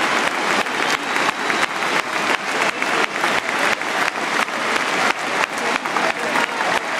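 Football stadium crowd applauding, with close hand claps standing out in a quick steady rhythm, several a second, over the massed clapping.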